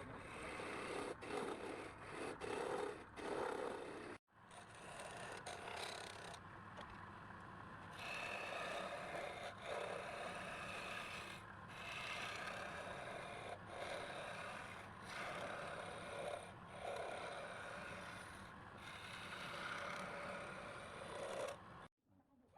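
Scraping and rasping of a tool worked against wood in repeated passes, swelling and fading every second or so, with a sudden break a little after four seconds.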